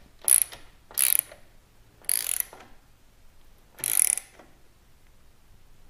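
Socket ratchet clicking in four short strokes as a bolt on the motorcycle's exhaust is tightened down. There is a longer pause before the last stroke.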